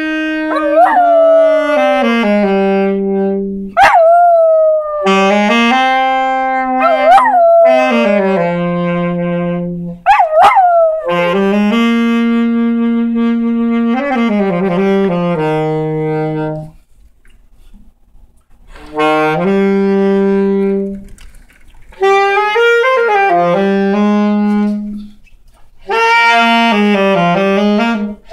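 A saxophone playing long held notes while a dog howls along, its voice swooping up and back down in pitch several times, mostly in the first half. The playing breaks off briefly past the middle.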